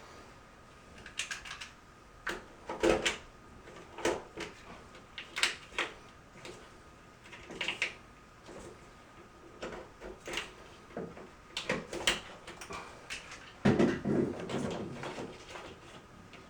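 Hands handling tools and materials on a floor job: irregular clicks, taps and knocks, with a louder clattering run near the end.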